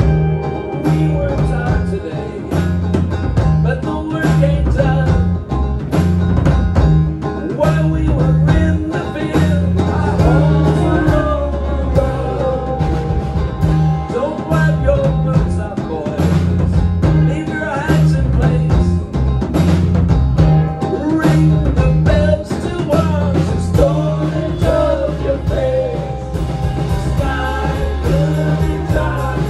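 Live band playing with drums, bass line, banjo, pedal steel guitar and electric guitar, with a man singing over a steady drum beat.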